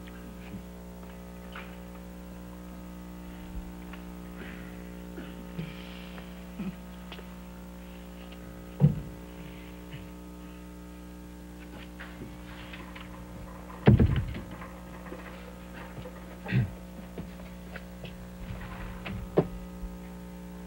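Steady low electrical mains hum, with a few short thumps spread through it, the loudest about 14 seconds in.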